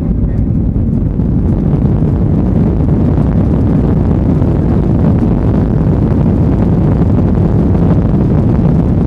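Boeing 737-800 cabin noise: the steady, loud rumble of its CFM56 jet engines and the rushing airflow, heard from a window seat.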